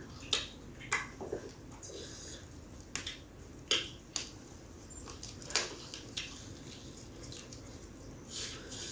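Soft, scattered clicks and crackles of eating raw young mango leaves: leaves torn from their stems, chewing and lip smacks, about a dozen small irregular sounds.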